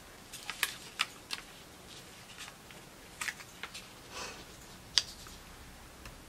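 Light taps and clicks of paper die-cut embellishments being handled and pressed down onto a scrapbook page, scattered and irregular, with a brief paper slide a little after the middle and a sharper click about five seconds in.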